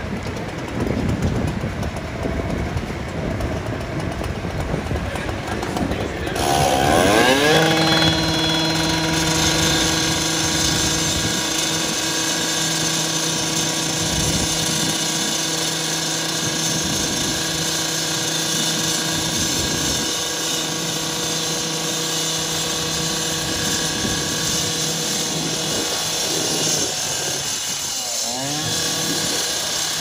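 Handheld rotary cutting saw cutting into the steel body of a garbage truck. It revs up about six seconds in and then runs at a steady high speed through the cut, dipping briefly and picking up again near the end.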